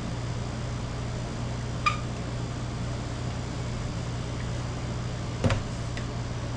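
Steady low mechanical hum, with a sharp metallic clink that rings briefly about two seconds in and a louder knock about five and a half seconds in.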